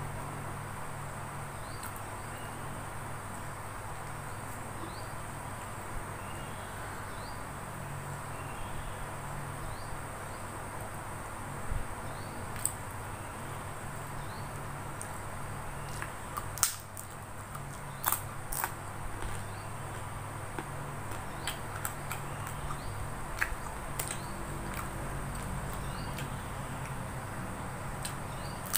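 Hand-eating sounds: a handful of sharp crunchy clicks, mostly in the middle, as a crisp peyek cracker is broken and bitten. Underneath are a steady low hum and faint high chirps repeating every second or two.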